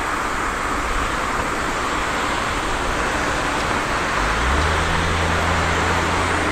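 Steady jet engine noise of an airliner on approach, slowly growing louder, with a low hum joining about four seconds in.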